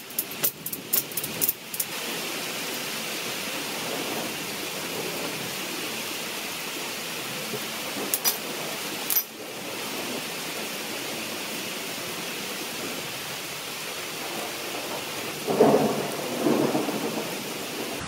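Steady rain falling, an even hiss throughout. A few sharp clicks come in the first two seconds and again around eight to nine seconds in, and a brief, louder low rumble comes near the end.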